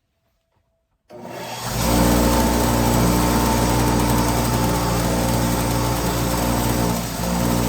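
Electric power tool with a brass wire brush starting up about a second in, coming up to speed and running with a steady hum while cleaning a rusty socket swivel. The sound dips briefly near the end.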